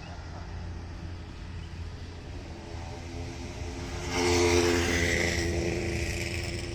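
A motor vehicle passing on the road: its engine and tyre noise swell to a peak about four to five seconds in, then fade away, over a steady low rumble.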